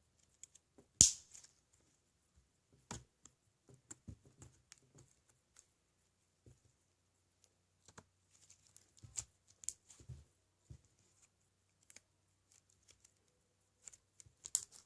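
Slime being kneaded and stretched by hand, giving scattered small clicks and crackles, the loudest about a second in, with more clustered after about nine seconds and just before the end.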